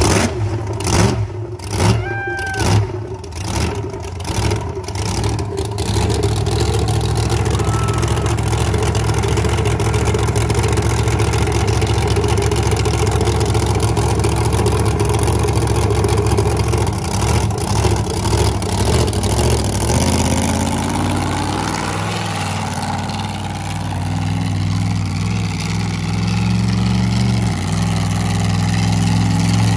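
King Sling monster truck's 1,500-horsepower engine with open zoomie headers firing up: about six seconds of uneven, separate bursts as it catches, then a loud steady run. From about twenty seconds in the note shifts and climbs as the truck moves off.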